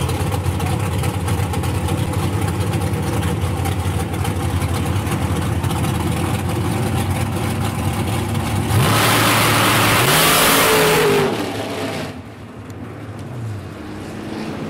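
Top Sportsman Pontiac drag car's engine idling with a rough, uneven beat on the starting line. About nine seconds in it launches at full throttle, a sudden loud blast lasting two to three seconds. It then drops away sharply as the car runs off down the track, with a falling note near the end.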